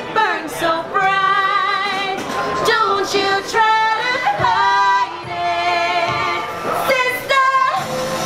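A woman singing solo into a microphone, holding long notes with vibrato and sliding between pitches.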